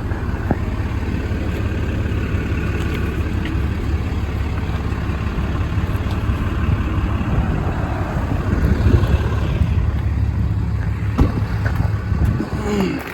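6.7-litre Cummins turbo-diesel engine idling steadily, with a couple of sharp knocks about half a second in and again near the end.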